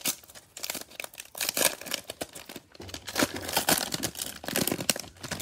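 Cellophane wrapper of a Prizm baseball cello pack being torn open and crinkled as the stack of cards is pulled out, with irregular crackling and rustling throughout.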